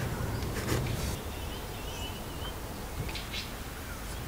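Outdoor seaside ambience: a steady low rumble, with a few faint high bird chirps about two seconds in.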